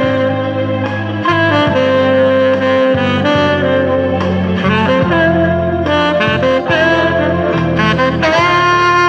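Selmer saxophone with a Meyer 7 mouthpiece and a fibre reed playing a slow romantic melody: held notes joined by short note changes, played live with no editing.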